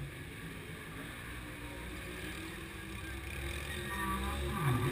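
Race car engine running steadily, its pitch dropping and climbing again near the end as the throttle is lifted and then reapplied.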